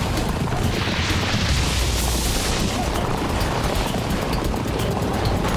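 Television music score over the thudding, rushing noise of horses dragging a man face-down through mud, with a swell of hiss about a second in.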